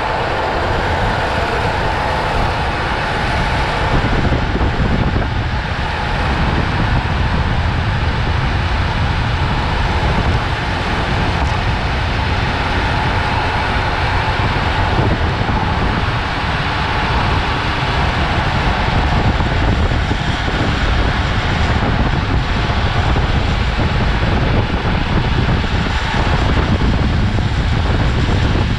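Steady rush of wind across the microphone mixed with the roar of longboard wheels rolling on asphalt, at downhill speeds of roughly 55 to 80 km/h.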